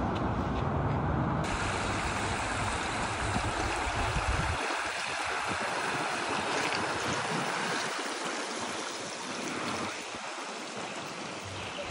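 A river flowing, a steady rush of water. For about the first second and a half there is the low rumble of a car driving on a road.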